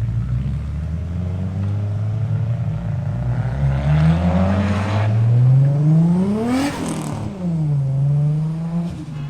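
Car engine accelerating past at close range. Its pitch climbs for about three seconds, peaks and drops sharply as the car goes by, then holds a steady note.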